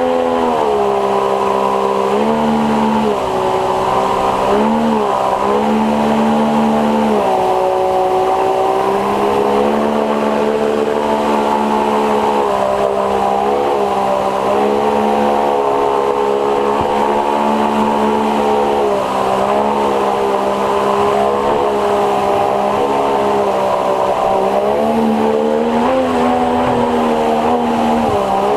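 Water-jet 50-horsepower outboard on an inflatable boat running hard, its pitch dipping and rising again several times as the throttle is eased and reopened, over a steady rush of water.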